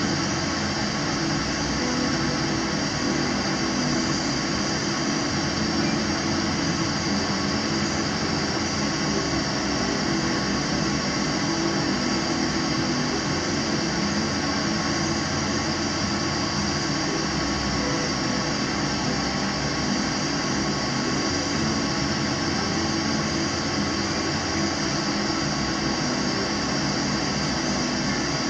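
Gas burner flame running under a glass beaker of gold chloride solution being heated for the oxalic acid reduction: a steady, even rushing noise with a low rumble that does not change.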